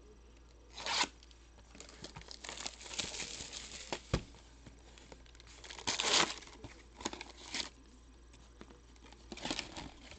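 Packaging being torn open and crinkled, in several separate bursts with the loudest about six seconds in: the wrapping of a sealed box of baseball card packs being ripped open.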